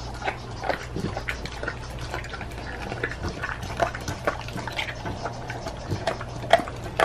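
A pitbull-mix dog licking and chewing, wet smacking mouth sounds in quick, irregular clicks.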